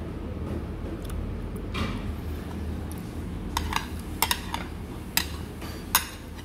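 Cutlery and tableware clinking during a meal: several sharp, light clinks in the second half, over a steady low hum of room noise.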